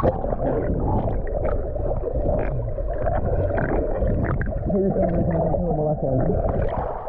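Muffled rushing river water picked up by a GoPro in the water, dull and low. A muffled voice is heard about five seconds in.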